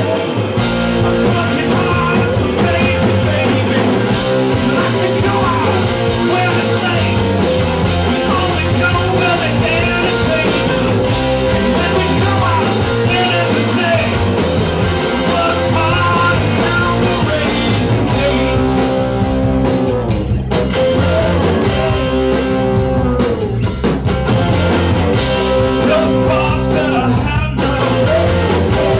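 Live rock band playing a song: distorted electric guitars and a drum kit with sung lead vocals.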